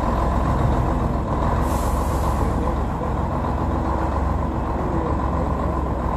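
Scania 113 truck's six-cylinder diesel engine running steadily at low revs as the rig reverses slowly. There is a short hiss of air about two seconds in.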